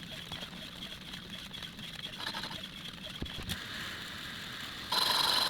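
Metal lathe running while a boring bar takes another pass inside a bore, with a steady faint high whine and low hum. Near the end a louder, higher whine comes in for about a second.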